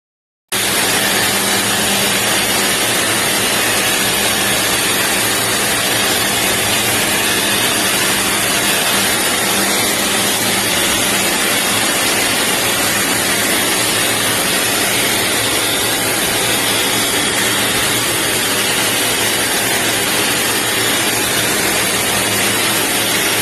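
EGFKI 5.2HP/3800W high-velocity pet dryer running, a loud, steady rush of blown air with a low motor hum underneath.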